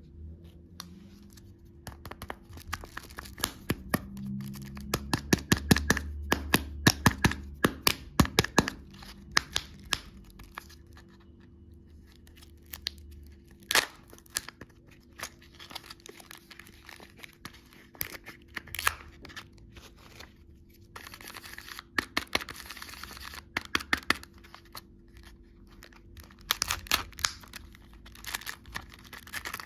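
Candy packaging being crinkled and torn open, with dense runs of sharp crackles in the first third that thin out into scattered crackles later.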